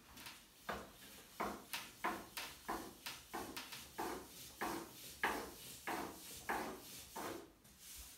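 Rhythmic rubbing and rolling of a hand and a long thin wooden rolling pin (oklava) working yufka dough and flour on a glass tabletop, about two or three strokes a second.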